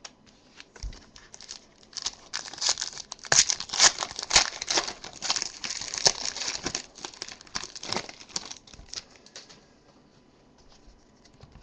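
Foil wrapper of a Panini Select football card pack being torn open and crinkled by hand, a dense crackling that starts about two seconds in, is loudest in the middle and dies away about two seconds before the end.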